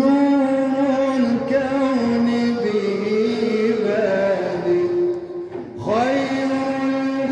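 A male munshid chanting an Islamic ibtihal (devotional supplication) unaccompanied into a microphone, holding long ornamented notes that step down in pitch. A little over five seconds in he breaks briefly, then starts a new phrase with a rising swoop.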